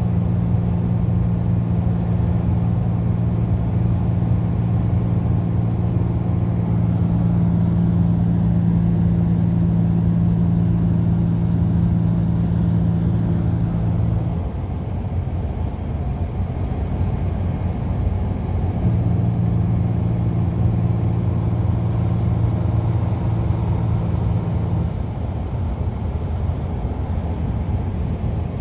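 Engine and road noise heard from inside a large vehicle's cab cruising on a highway. A steady low engine drone drops away about halfway through, comes back a few seconds later, and eases off again near the end, while the road noise carries on.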